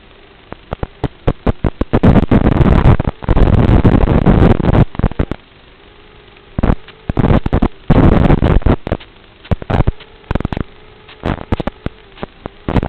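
Rain drops striking the microphone: irregular sharp taps that come in dense, loud clusters about two seconds in and again a little past the middle, over a faint steady hum.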